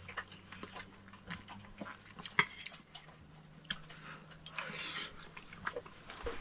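A fork clicking and scraping on a plate, with chewing, in a run of light, scattered clicks.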